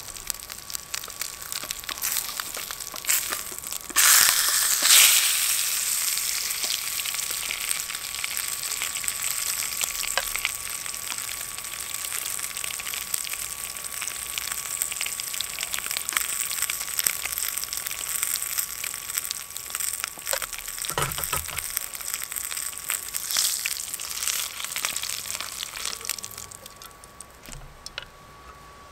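Pork frying in bacon grease in a small titanium fry pan: a steady sizzle full of small crackling pops. It is loudest about four seconds in and dies away near the end as the pan comes off the stove.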